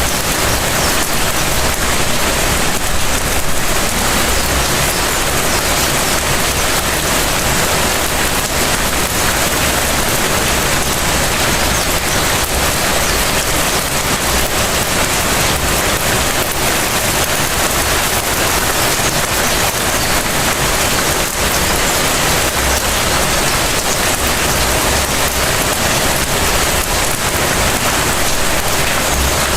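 Steady light rain falling and pattering on surfaces, an even hiss with no let-up.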